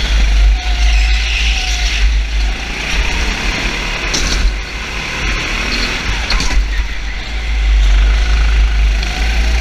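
A motor vehicle's engine running, its pitch rising and falling, under a heavy low rumble and a broad rushing noise.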